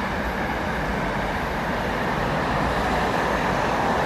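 Container wagons of a freight train rolling past, a steady noise of steel wheels running on the rails.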